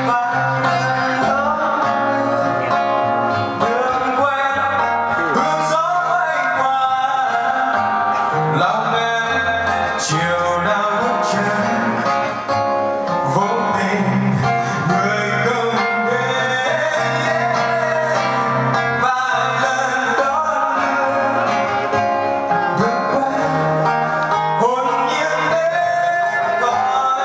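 A live band performing: a singer into a microphone over guitar accompaniment.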